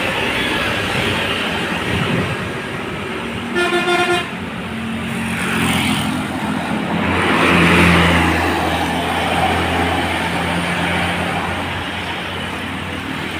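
A bus horn gives one short, pulsing blast about four seconds in, over heavy road traffic. A large vehicle's engine then swells and fades as it passes, loudest around the middle.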